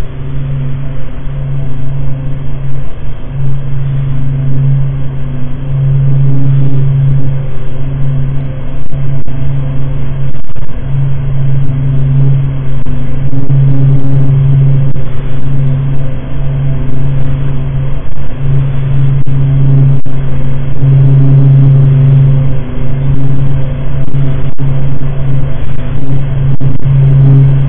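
Neptune's magnetic-field and radio-wave signals converted to sound: a deep, loud drone with a few overtones, its level throbbing unevenly, over a faint hiss.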